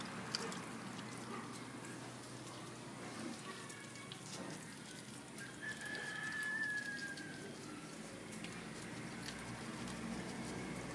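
A small Jack Russell–Shih Tzu cross dog chewing raw fish: scattered wet smacking and crunching clicks. A thin high tone, slightly falling, lasts about two seconds near the middle.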